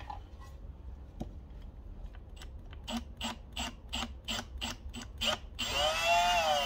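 Milwaukee Fuel cordless drill starting a hole in a metal motorcycle fender: the trigger is pulsed in a row of short bursts, about three or four a second, then the drill runs steadily near the end, its whine dipping in pitch and recovering as the bit bites into the metal.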